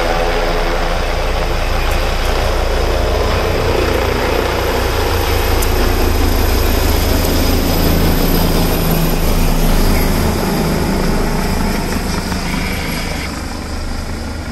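Helicopter flying low overhead: a steady, loud rotor and turbine noise that swells to its loudest a little past the middle and eases off near the end.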